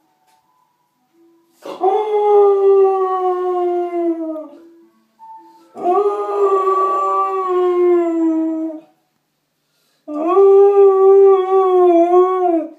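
A Samoyed howling along to an ice cream van's jingle: three long howls, the first two sagging slightly in pitch toward their ends, the last one wavering.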